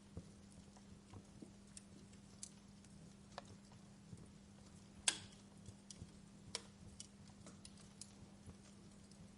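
Wood fire in a fireplace crackling softly, with scattered irregular pops and one louder pop about five seconds in, over a faint steady hum.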